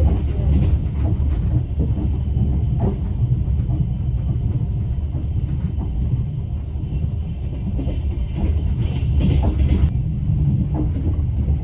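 Moving passenger train heard from inside an open-berth sleeping car: a steady low rumble from the running gear and carriage body, with scattered light clicks and knocks.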